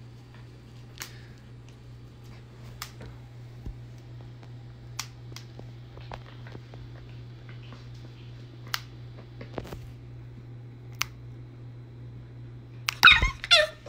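Pet nail clippers snipping a corgi puppy's claws: a string of sharp, single clicks a second or two apart over a low steady hum. Near the end the puppy gives a short, high yelp.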